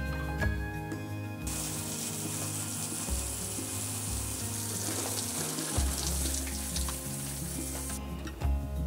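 Garden hose spray nozzle jetting water against a glass window, a steady hiss that starts about a second and a half in and cuts off about a second before the end. Background music plays underneath.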